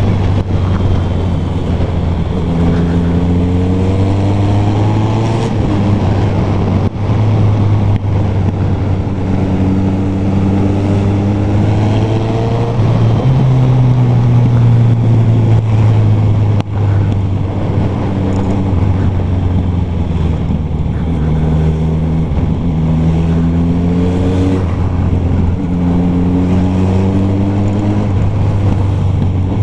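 Suzuki Bandit 1250 inline-four with a Carbox Racing aftermarket exhaust, heard on board with wind rush: a steady low drone while cruising, broken about five times by rising revs as the bike accelerates through the gears.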